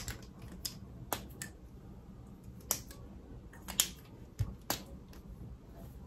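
Scattered light clicks and taps of plastic makeup packaging being handled, such as caps and sticks being opened, about eight sharp ones spread irregularly over a low steady room hum.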